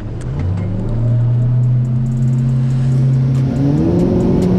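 Boat outboard engine throttling up onto plane. The engine note climbs in two steps, about half a second in and again near the end.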